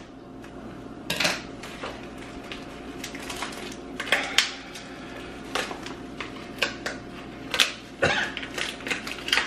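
Plastic wrapping rustling and crinkling, with irregular light clicks and knocks of gingerbread pieces and packaging handled on a hard countertop, the sounds of a gingerbread house kit being unpacked. The loudest rustles come about a second in, around four seconds in and near the end.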